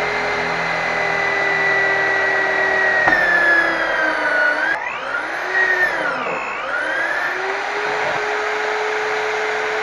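Electric drill motor running at a steady whine, slowing under load from about three seconds in, dipping lowest around six seconds, then speeding back up to its free-running pitch.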